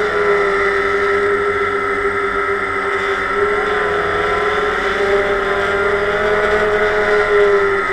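DJI Phantom quadcopter's electric motors and propellers whining steadily, heard from the GoPro mounted on the drone. The pitch wavers a little around the middle as the motors change speed.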